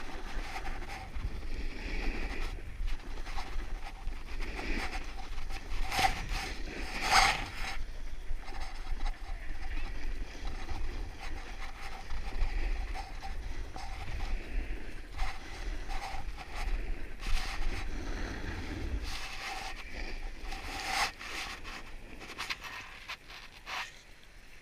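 Snowboard sliding and scraping over packed, tracked snow, with wind buffeting the camera microphone. The wind rumble stops a few seconds before the end and the sliding grows quieter as the board slows.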